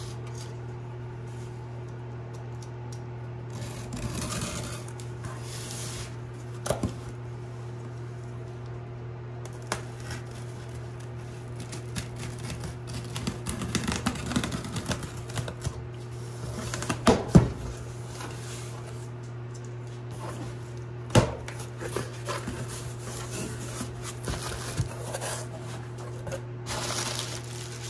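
Cardboard box being cut open with a utility knife: the blade scrapes along the packing tape, the cardboard tears and the flaps are pulled open, with scattered clicks and a couple of sharper knocks. A steady low hum runs underneath.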